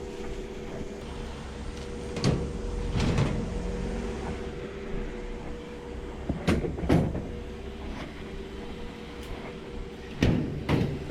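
Knocks and clunks of objects being handled and set down, coming in three pairs, over a steady hum.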